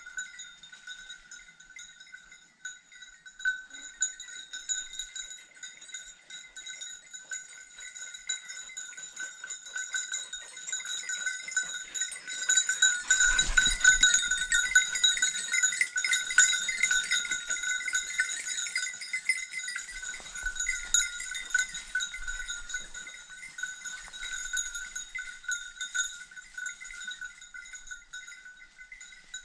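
Bell on a boar-hunting dog jingling steadily as the dog works through the scrub, swelling loudest about halfway through as it passes close, with rustling in the undergrowth.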